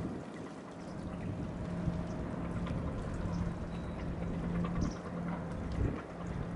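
Seawater lapping and trickling against a moored boat's hull and the quay, over a steady low hum.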